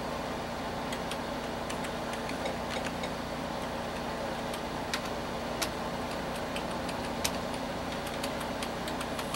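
Computer keyboard keys struck now and then, short sharp clicks at irregular intervals, over the steady fan hum of a running PC.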